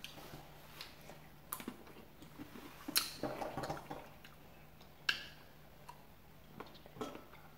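Cherries being picked and eaten: scattered soft clicks and wet chewing sounds, with sharper clicks about 1.5, 3 and 5 seconds in, over a faint steady hum.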